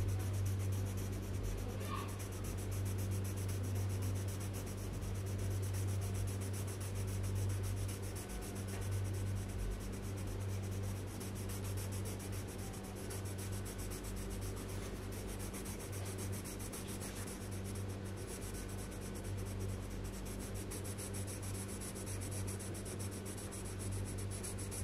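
Colored pencil shading on paper, a continuous scratching of quick back-and-forth strokes. A steady low hum runs underneath.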